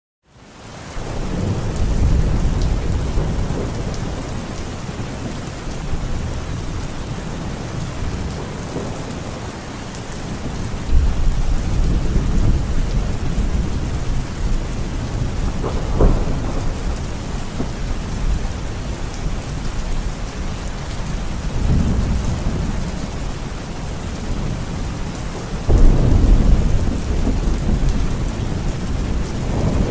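Heavy, steady rain pouring down, with rolls of thunder rumbling several times. There is a sharp crack about halfway through, and a loud rumble breaks in suddenly near the end. The sound fades in at the start.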